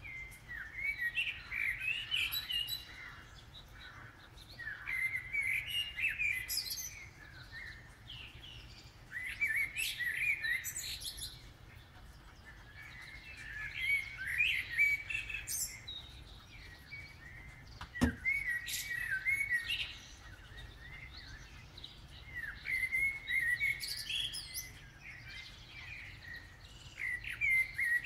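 Eurasian blackbird singing: warbled phrases of about two seconds, each with a high twittering end, repeated every four seconds or so. A brief click about eighteen seconds in.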